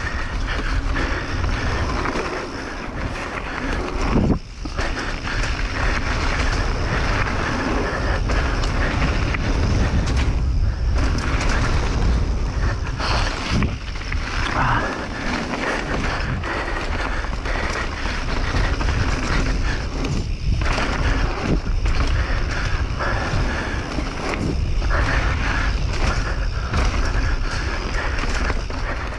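Mountain bike running down a dirt trail: wind buffeting the microphone over the rolling noise of the tyres and the rattle of the bike, with a few sudden jolts along the way.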